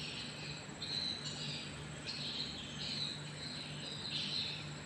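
Insects chirring: a chorus of high buzzing bursts, each lasting about half a second to a second, following one after another over a thin, steady, high whine.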